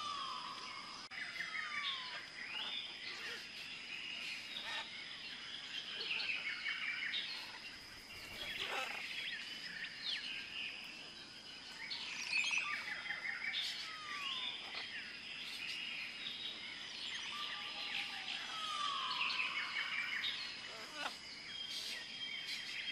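Many birds chirping and calling: quick chirps and short falling whistles, over a steady high-pitched whine.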